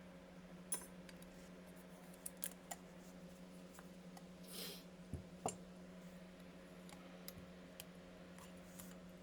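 Scattered light clicks and taps of small parts and tools being handled during a carburetor rebuild, with a short hiss about four and a half seconds in and a sharper knock just after, over a steady low hum.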